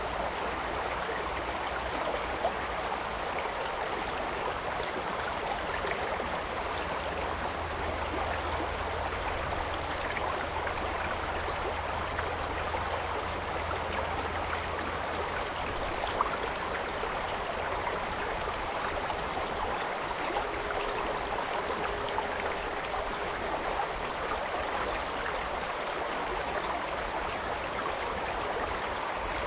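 Stream water flowing in a steady, unbroken rush, with a faint low hum underneath through the first half.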